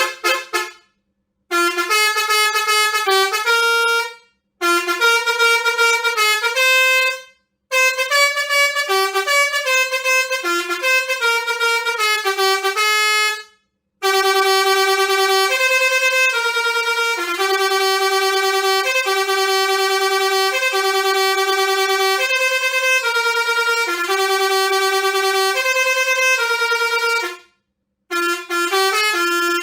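Basuri six-trumpet musical air horn playing a series of tunes, one after another with short silences between them. The longest tune runs about thirteen seconds.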